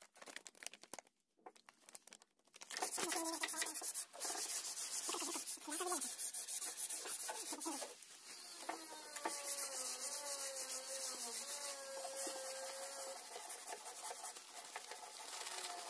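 Crinkling and rustling of foil and plastic packets as powder is shaken out into a plastic cup. The crackling starts about two and a half seconds in and goes on in uneven bursts.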